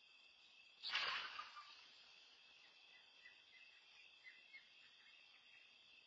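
Night insects, crickets, trilling steadily, cut across about a second in by a sudden harsh burst of noise that fades within about a second. A few faint short chirps follow.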